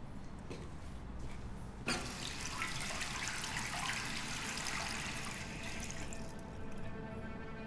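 Water rushing from restroom plumbing, starting suddenly about two seconds in and dying away after about four seconds. Soft music with held notes comes in as it fades.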